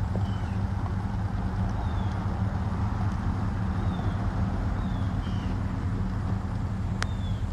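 Diesel engine idling steadily with a low, even drone, a few faint short high chirps over it and a sharp click near the end.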